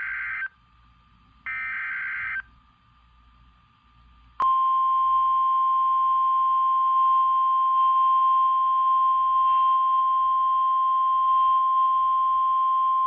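Emergency Alert System SAME header data bursts, two harsh one-second digital screeches a second apart, followed about four seconds in by a click and the NOAA Weather Radio single-tone warning alarm, a steady 1050 Hz tone held for about nine seconds. The sequence signals that a warning message is about to be read.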